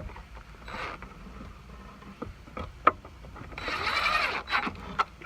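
Handling noise: scattered sharp clicks and knocks, with a longer rustling scrape of about a second past the middle.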